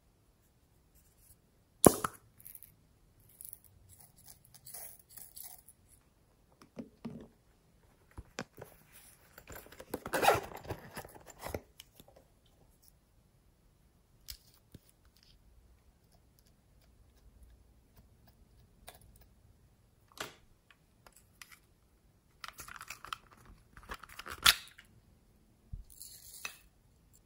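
Small plastic novelty toy capsules handled and snapped open, with sharp plastic clicks and snaps (the loudest about two seconds in and again near the end) and scratchy rustling between them. Near the end a brief light hiss as sequins and glitter are poured out of a capsule.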